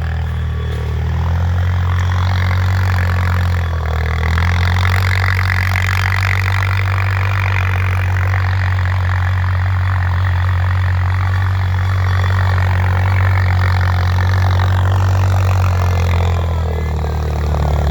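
Four-wheeler (ATV) engine running steadily under load while towing, its pitch shifting slightly about a second in, again around four seconds, and near the end.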